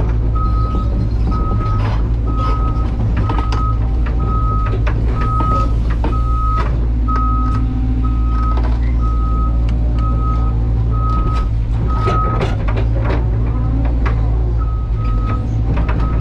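Excavator's diesel engine running steadily while its travel/backup alarm beeps about once a second, stopping for about two seconds near the end and then starting again. Scattered clanks and knocks sound over the engine.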